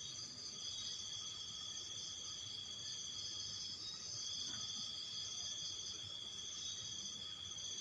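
Night insects, crickets, trilling steadily in a high-pitched chorus of several overlapping pitches.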